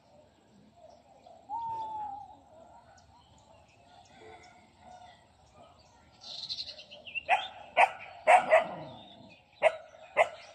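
A dog barking, five or six sharp barks in the second half, over a faint outdoor background with a few bird chirps earlier.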